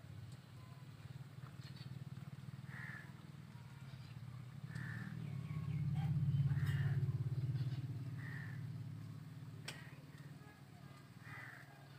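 Crows cawing in short calls every second or two over a low steady hum that swells in the middle and fades again.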